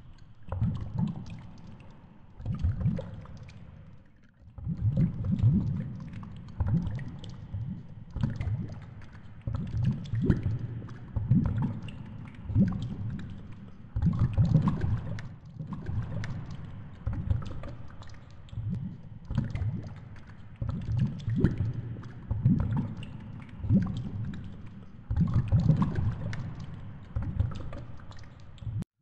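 Muffled underwater noise around a GoPro's housing on a fishing line: water moves past in low surges every second or so as the rig sways, with scattered clicks and knocks.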